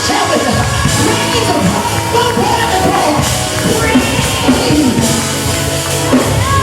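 Loud live church worship band music with a drum kit, pitched lines gliding up and down over it.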